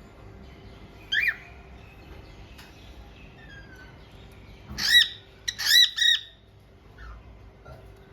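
Cockatiel calling: one short call about a second in, then three loud, shrill calls about five to six seconds in, each rising and falling in pitch.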